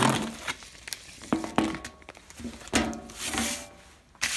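A paper envelope and a plastic-packaged head gasket rustling and crinkling in the hands as the gasket is taken out, in several short bursts of handling noise, loudest at the start and about three seconds in.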